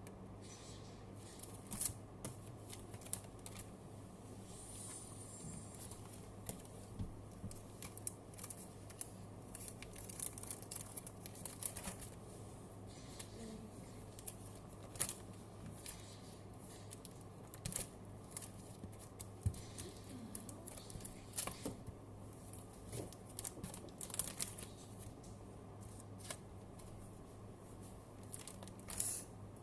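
Match Attax trading cards being handled: irregular flicks, taps and rustles of card and paper, over a steady low hum.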